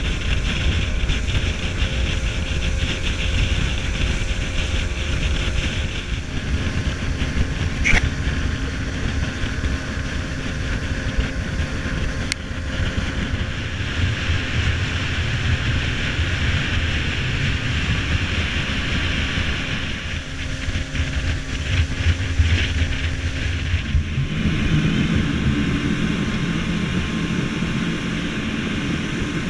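Small motorboat running at speed across open water: wind buffeting the microphone and rushing water over a faint steady engine hum.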